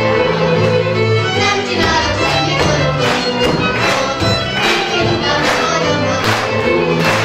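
Hungarian folk dance music led by fiddle, with a steady bass line. In the second half, sharp knocks come about once a second, the dancers' stamps on the stage.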